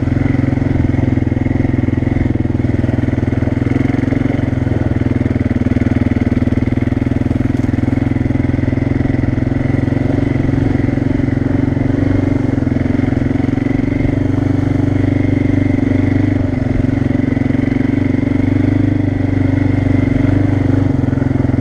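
ATV (quad) engine running steadily while the quad rolls along a grassy dirt trail, with no revving or changes in speed.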